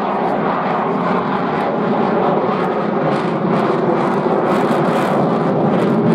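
F-35 fighter's single Pratt & Whitney F135 turbofan engine passing overhead as a loud, steady jet roar with a crackling edge, growing slightly louder toward the end.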